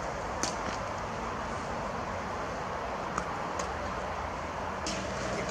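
Steady outdoor background noise, like distant road traffic, with a few brief faint clicks.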